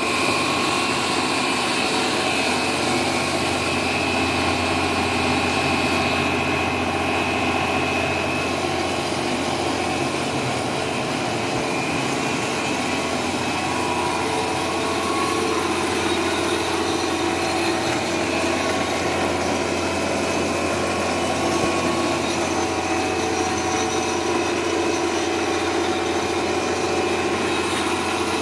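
Steady, loud running noise of a cast stretch film production line, its electric motors and rolls humming with several steady whining tones. A high whine fades out about eight seconds in.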